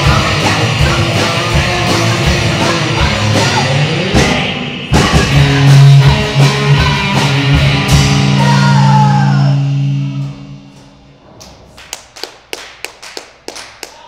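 Fastcore band playing loud and fast with distorted guitar and drums. It ends on a held low chord that rings on under a few drum hits and fades out about ten seconds in. A string of sharp, scattered hits follows near the end.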